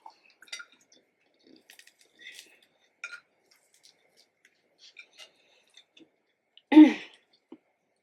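Close-miked mukbang eating sounds: scattered soft clicks and wet mouth noises of chewing. About seven seconds in comes one short, loud sound from the throat.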